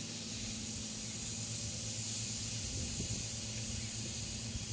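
Steady high-pitched hiss of compressed propellant gas flowing from a hand-held charging can into an Estes Coldpower cold-gas rocket engine, filling it before launch.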